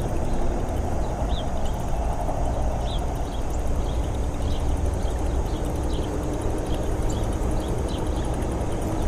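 Steady wind rumble on the microphone, with faint short high chirps scattered throughout.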